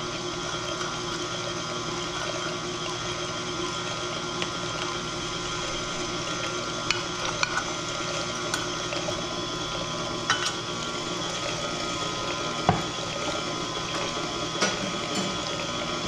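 KitchenAid Classic Plus stand mixer running steadily, its motor giving a constant hum and whine as the beater churns a thin cream-and-sugar batter in the steel bowl. A few sharp clicks come now and then.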